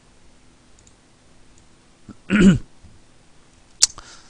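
A man's short cough-like throat sound about halfway through, then a single sharp click near the end, over faint room hiss.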